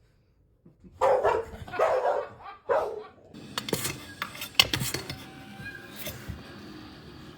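A dog barks three times in quick succession about a second in, followed by a few seconds of scattered clicks and knocks.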